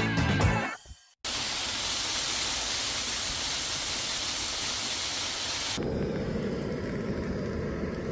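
Steady heavy rain falling outside a trail shelter, an even hiss, heard from under the shelter roof. About six seconds in the sound changes to a duller, lower rushing noise.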